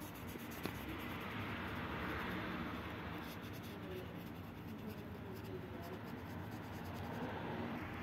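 Felt-tip marker rubbing and scratching across the paper of a colouring book as a shape is coloured in, a steady soft scratching with one small click about half a second in.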